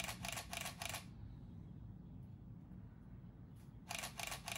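Camera shutter firing in burst mode: two quick runs of about four evenly spaced clicks each, one at the start and one near the end, over a low steady background noise.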